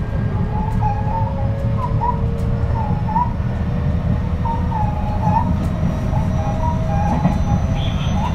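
Running sound of a JR West 223 series 2000 electric train with a Hitachi IGBT inverter: a steady low rumble of wheels on rail, with faint steady traction-motor tones and a wavering high squeal recurring about once a second.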